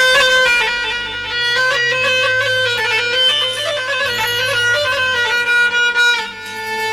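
Instrumental Arabic party music with no singing: a held, reedy lead melody over a low bass line.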